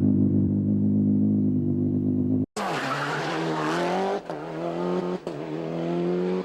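A rally car engine running hard at steady revs, then a sudden cut to another rally car: its engine revs climbing and dropping twice at gearshifts, with tyre and gravel noise.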